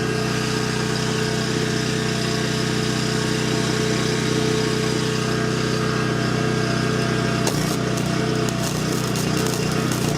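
Small generator engine running steadily. About seven and a half seconds in, irregular crackling starts over it, typical of a flux-cored wire welding arc.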